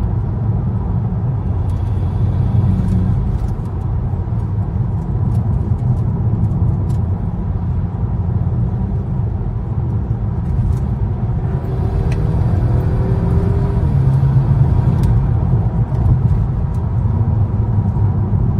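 VW Scirocco heard from inside the cabin while driving: steady engine and road rumble, with the engine note climbing for a few seconds about two-thirds of the way through and then dropping back. The petrol engine runs without misfiring on its new cylinder 3 coil pack.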